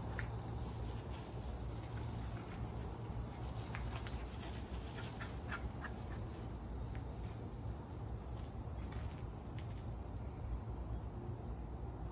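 Crickets trilling in one high, unbroken tone, over a low rumble.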